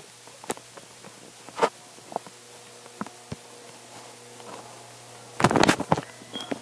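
Phone handling noise: scattered taps and knocks on the phone's body and microphone, with a louder burst of rubbing and knocks about five and a half seconds in, over a faint steady hum.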